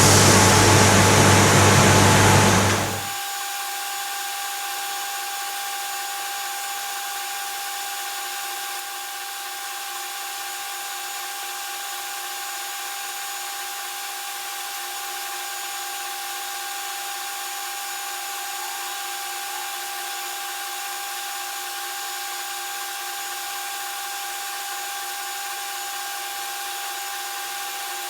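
Spray-painting equipment, a spray gun run off an air compressor, running steadily. A loud deep hum for about the first three seconds gives way to an even hiss with a steady whine.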